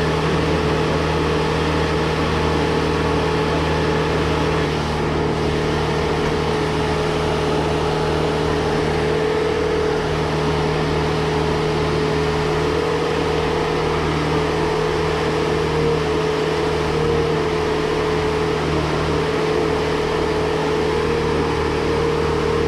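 An engine running steadily at idle, a constant low drone with a steady hum that does not change.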